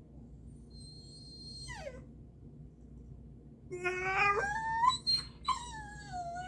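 Pomsky female dog in labor whining and crying: a short high whine that falls steeply in pitch about two seconds in, then a louder, longer wavering cry near the end.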